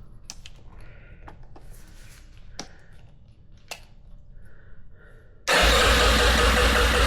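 Small clicks and handling noises, then about five and a half seconds in the electric starter cuts in loudly and cranks the Yamaha XT250's single-cylinder engine, which turns over steadily but does not fire.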